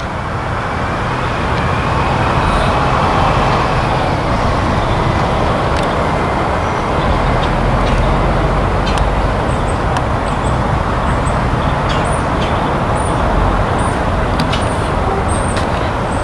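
Loud, steady roar of heavy machinery at work, swelling over the first couple of seconds and then holding, with a few faint ticks above it.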